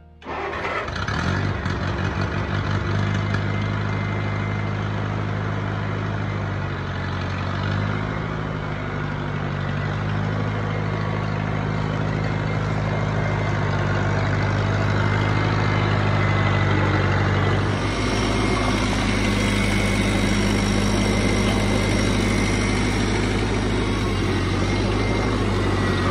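1978 Farmall Cub's four-cylinder gasoline engine running steadily as the tractor is driven, a low, even engine note.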